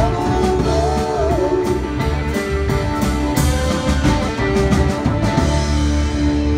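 Live rock band playing: electric guitars, electric bass and a drum kit.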